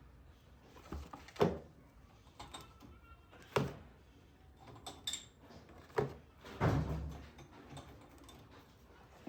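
Kitchen things being handled: a series of five or six separate knocks and thuds, with a longer, heavier one about two-thirds of the way through.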